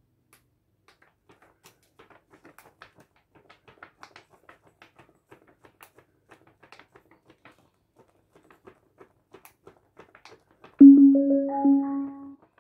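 Portable Bluetooth speaker playing its pairing chime, a short rising run of about four notes, signalling that a phone has connected. Before it come faint light clicks of handling.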